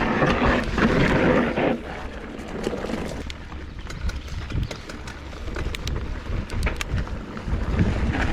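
Mountain bike rolling down a loose dirt trail: tyre noise and wind rushing on the microphone, loudest for the first second and a half, then a lower rumble with scattered sharp clicks from stones and the bike rattling.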